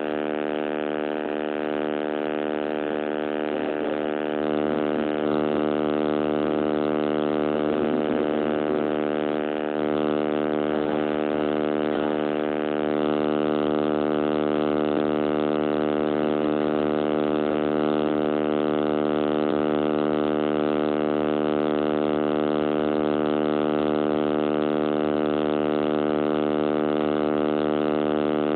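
Loud, steady electrical buzzing from a damaged recording microphone, one unchanging pitched drone that swamps the recording.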